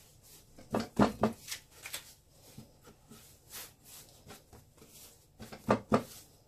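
Bread dough being rolled and pressed by hand on a wooden board, with soft rubbing throughout. The board knocks sharply against the counter: three knocks about a second in and two more near the end.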